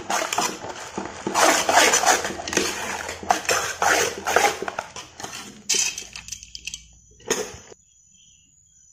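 Metal spoon scraping and stirring puffed rice around a large metal bowl: a dense run of scrapes and dry rustling that thins out after about six seconds and stops near the end.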